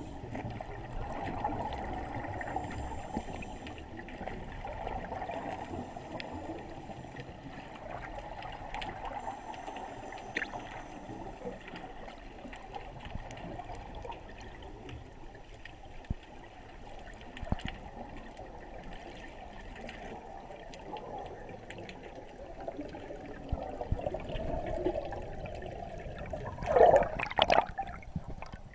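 Muffled underwater noise heard through an action camera's waterproof housing: a steady, dull rush of moving water. Near the end come a few louder, sudden splashes and sloshes as the camera nears the surface.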